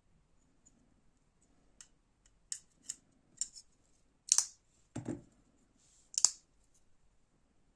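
Folding knife being handled: a string of sharp metallic clicks and snicks, as of a blade and its lock being worked, with the loudest click a little past four seconds in and another near the end. A duller knock comes about five seconds in.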